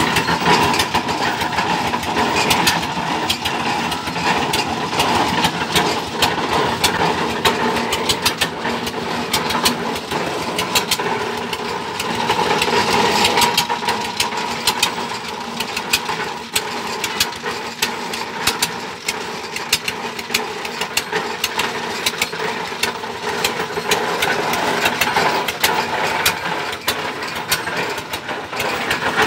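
Water-well boring rig's engine running steadily, with many sharp clicks and knocks from the rig over it.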